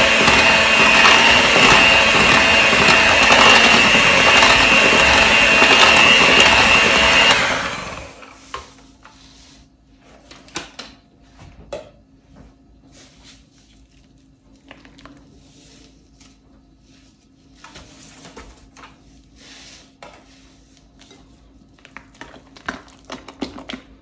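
Electric mixer beating cream cheese and vanilla extract, running steadily at high speed with a whine, then switched off about seven seconds in. Scattered light clicks and knocks follow.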